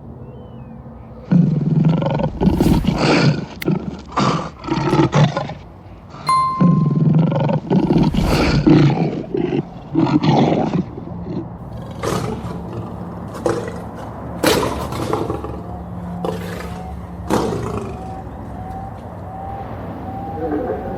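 Lion roaring: two long bouts of loud, deep, pulsing roars, followed by shorter, quieter grunts that trail off.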